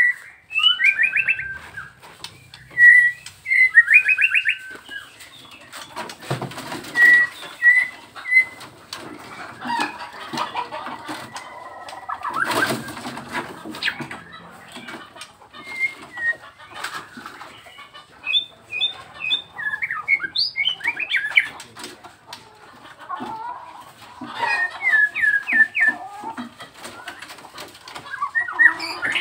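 A young Nias white-rumped shama (murai batu) singing in its cage: short clear whistles and fast rattling trills, phrase after phrase. Scattered clicks and wing flutters from the bird moving about the cage.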